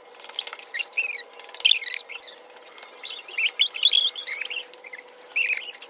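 Small animals chirping and squeaking rapidly in short, high calls, many of them falling in pitch, over a faint steady hum.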